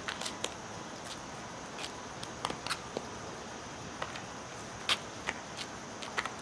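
Footsteps on asphalt: scattered sharp, light clicks at irregular intervals over a steady outdoor hiss, the loudest about five seconds in.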